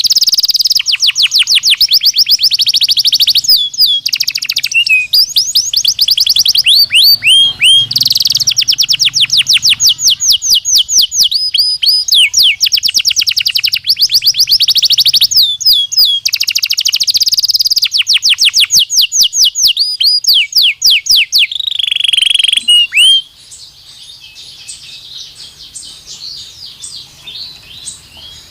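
Belgian canary singing loud, rapid trills of downward-sweeping whistled notes, about ten a second, in a string of rolling phrases. The loud song stops suddenly about 23 s in, leaving only faint chirping.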